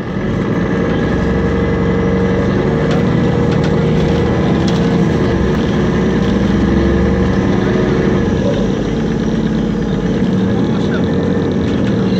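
MAN NL223 city bus's diesel engine running under way, heard from inside the passenger cabin. The engine note changes about eight seconds in.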